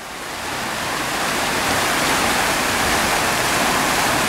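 Steady rushing noise, like running water, that swells up over the first two seconds and then holds level.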